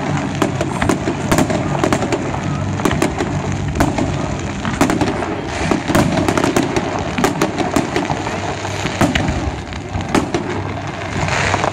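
Aerial fireworks shells bursting in a rapid, continuous barrage of bangs and crackles.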